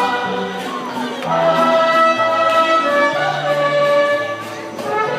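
Carousel music playing: a melody of held notes over a steady beat.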